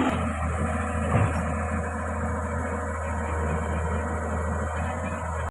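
Excavator's diesel engine running steadily, with a brief louder moment about a second in.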